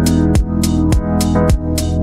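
Background electronic music: a steady kick drum about twice a second with sharp hits between the beats, over held synthesizer chords.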